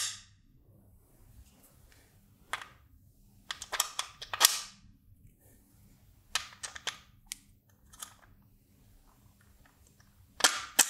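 Irregular sharp clicks and taps from socket screws and a clear acrylic sheet being handled, some coming in quick clusters with quiet gaps between them. The loudest come at the start, about four seconds in and near the end.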